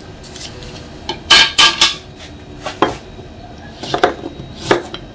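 Kitchen knife and utensils knocking and clattering against a table as a lemon is about to be cut. There is a quick run of sharp clacks about a second and a half in, the loudest, then a few scattered knocks.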